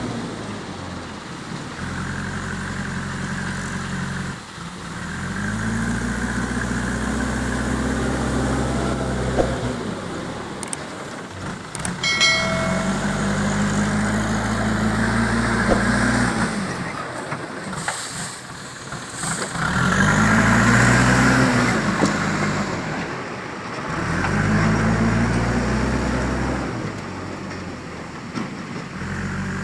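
Backhoe loader's diesel engine working, revving up and easing back in repeated cycles about every six seconds as it digs and loads. A short pitched tone sounds once, about twelve seconds in.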